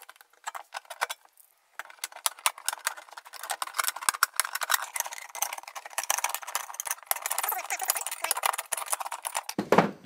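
Tin snips cutting around the rim of a thin steel food can, a dense run of rapid crunching snips and scraping metal that starts about two seconds in, after a few light clicks from handling the can.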